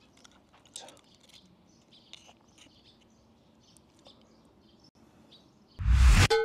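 Faint birds chirping now and then over quiet outdoor background. Near the end, a short loud sound-effect hit for the logo outro, with a ringing tone trailing after it.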